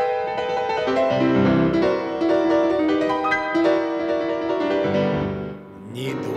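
Piano playing a lively run of notes, the phrase dying away about five and a half seconds in.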